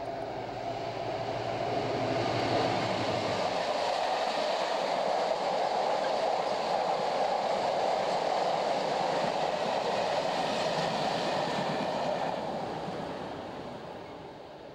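A Class 60 diesel locomotive runs past with its engine humming. A long rake of empty steel flat wagons follows, rumbling and rattling steadily over the rails, and the sound fades away near the end.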